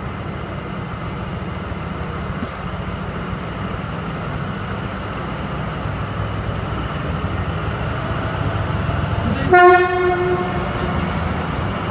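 Steady low rumble with one short, loud horn blast about three quarters of the way through.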